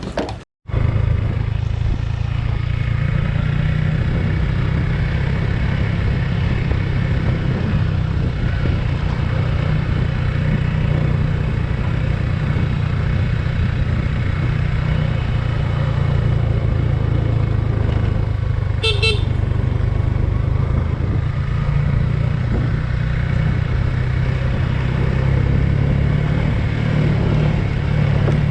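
Suzuki Gixxer 150 single-cylinder motorcycle engine running steadily under way. A short horn toot sounds about two-thirds of the way through.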